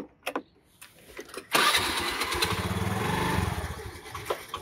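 Scooter's small petrol engine started with the starter about one and a half seconds in, catching at once and running steadily, then easing down near the end. A few light clicks come before it.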